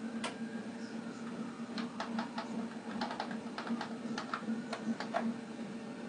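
A quick run of light, sharp clicks and taps, about fifteen in three and a half seconds, over a steady low electrical hum.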